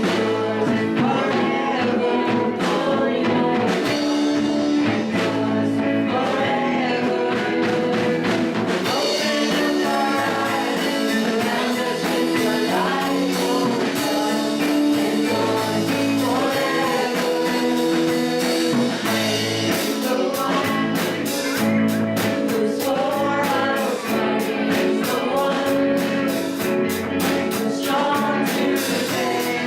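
A song playing: singing over a band accompaniment, with drum strokes growing busier about two-thirds of the way through.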